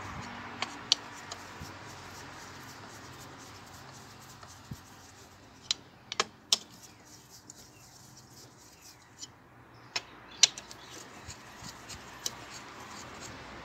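Scattered sharp metallic clinks of a wrench and loosened bolts, about eight in all, the loudest about a second in and about ten seconds in, as bolts are taken out of a Maruti Swift Dzire's cylinder head.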